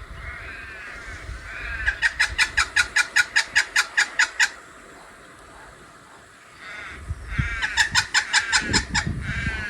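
A bird calling: a few arched chirps that build into a fast run of sharp clucking notes, about seven a second, for a couple of seconds, then a second run near the end.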